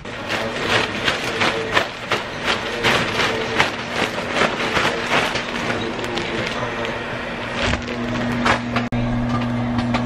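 A plastic bag of crushed Oreo cookies being shaken and squeezed: a dense, continuous crinkling and crunching of plastic and crumbs. Near the end it cuts off sharply to a steady low hum.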